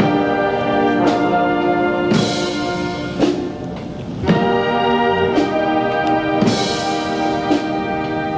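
Brass band playing a slow march in long held chords, with a drum stroke about once a second.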